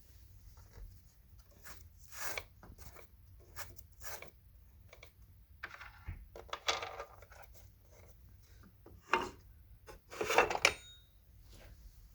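Handling of an Electrolux Discovery II upright vacuum with its motor off: scattered clicks, knocks and short rattles of its parts, loudest in a sharp knock about nine seconds in and a longer rattling clatter just after ten seconds.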